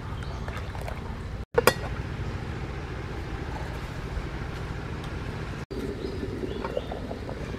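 A single sharp metallic clang about a second and a half in, as a metal lid meets the cooking pot, over a steady low rumble; a few light knocks near the end.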